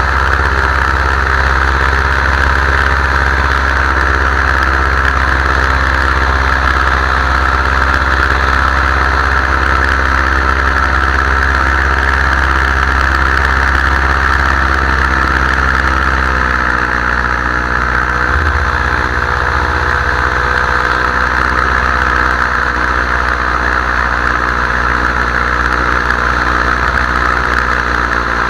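Paramotor engine and propeller running steadily in flight, a loud even drone. The engine note shifts slightly about two-thirds of the way through.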